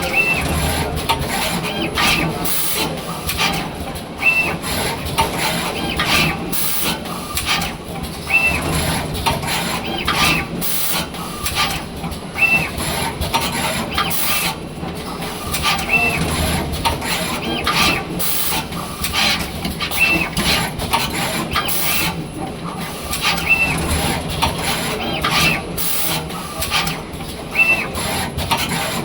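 Automatic wire-soldering machine cycling: short hisses and brief high whines repeat every second or two over a steady machine hum.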